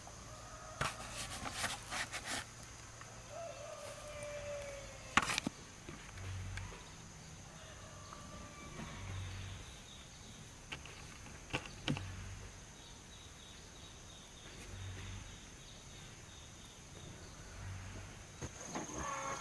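Rural outdoor ambience carried by a steady, high-pitched insect drone. A few sharp knocks and clicks come over it, a cluster near the start and the loudest about five seconds in, with soft low thuds roughly every three seconds after that.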